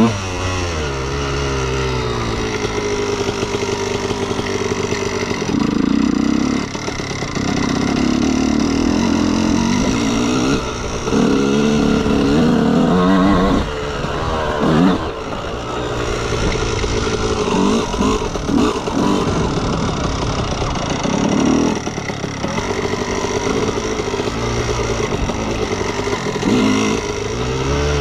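2003 Honda CR125R's single-cylinder two-stroke engine being ridden, its pitch climbing and dropping again and again as the throttle is opened and closed, with louder bursts in the middle stretch.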